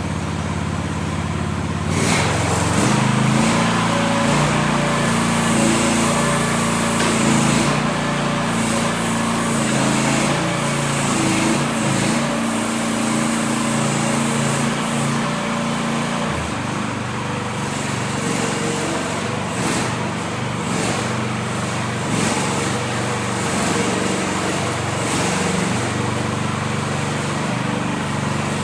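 New Future FT15 mini excavator's small engine running steadily, its note shifting about two seconds in and again a little past halfway.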